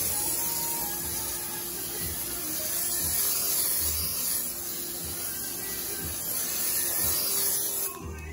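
Spray can of glitter paint hissing in one long continuous burst, cutting off near the end.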